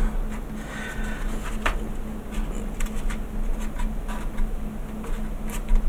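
Steady low electrical buzz, with a few faint light clicks.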